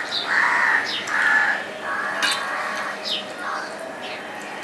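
A crow cawing about four times in quick succession, harsh calls, the first two the loudest, with short downward-sweeping chirps of smaller birds over it.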